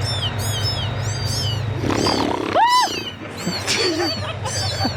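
Kitten meows played from a speaker: a run of short, high-pitched arching mews in quick groups, with one lower, louder meow about two and a half seconds in, over a steady low hum.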